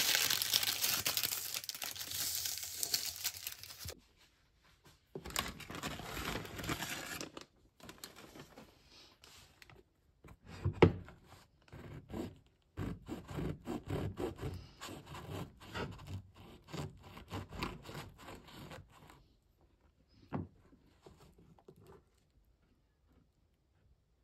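Parchment paper crinkling as shaped baguette dough is handled on it. A sharp knock comes a little before halfway. Then a serrated bread knife saws through a crusty baked baguette, and the crust crackles in a quick run of strokes.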